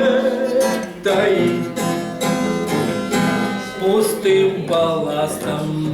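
Strummed acoustic guitar accompanying a song, with a singing voice holding and bending notes near the start and again about four seconds in.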